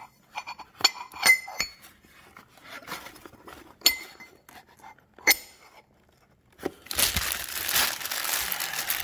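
A black 7075-T6 aluminium wheel spacer clinking and tapping as it is handled and set into its cardboard box: a quick run of sharp, ringing clinks in the first two seconds, then single clinks about 4 and 5 seconds in. From about 7 seconds a clear plastic bag crinkles steadily as the hand works the spacer inside it.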